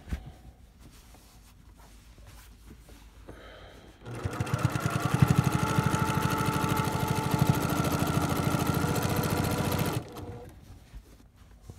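Brother PQ1500SL straight-stitch sewing machine stitching binding onto a quilt: after a few quiet seconds it starts about four seconds in and runs steadily at a fast stitch rate for about six seconds, then stops.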